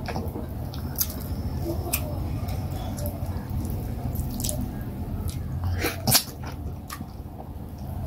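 Wet eating sounds: scattered sticky clicks and smacks, about one a second with a louder cluster about six seconds in. They come from chewing and from fingers pinching fufu and working it through vegetable soup.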